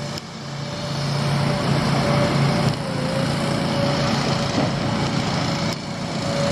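Heavy diesel construction machinery running steadily as an excavator loads a dump truck: a low engine hum with a high, slightly wavering whine above it.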